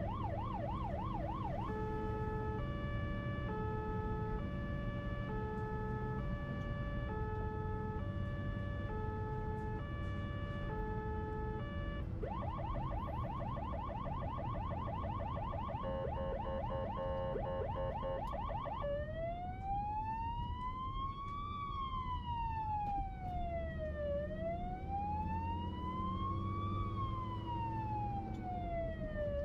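Emergency vehicle siren cycling through its patterns over traffic noise. It starts with a fast warble, switches to an alternating two-tone for about ten seconds, goes back to a fast, then faster pulsing warble, and ends in a slow wail rising and falling about every five seconds.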